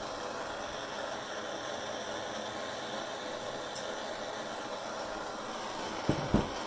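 Gas torch flame hissing steadily while heating metal on a soldering brick. Two knocks just after six seconds as the brick is handled.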